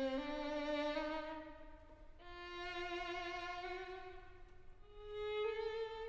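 Background music: a slow violin melody of long held notes with vibrato, moving to a new note about two seconds in and again near the end.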